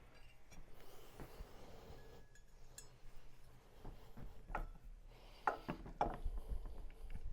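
Scattered clicks, light knocks and rubbing from printer parts and a tool being handled while fitting a spool holder, with a run of louder knocks about five and a half to six and a half seconds in.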